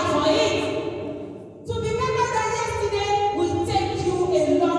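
A woman singing a slow melody with long held notes; the singing dies away about a second and a half in, then starts again.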